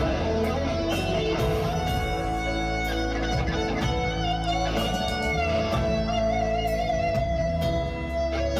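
A song playing, with guitar accompaniment and long held notes.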